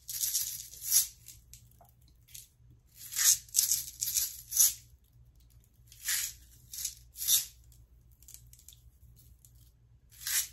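Chocolate sprinkles rattling inside a small plastic shaker jar as it is shaken out over a cake. The shaking comes in several short bursts of quick shakes with pauses between.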